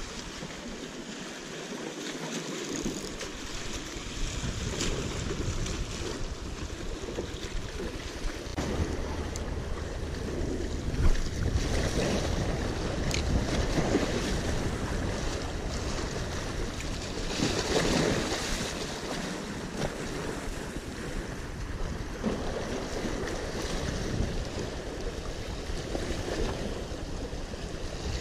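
Waves washing and splashing against the rocks of a jetty, with wind buffeting the microphone. There is one brief thump partway through.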